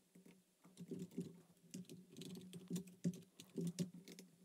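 Computer keyboard being typed on: quick, irregular, faint key taps.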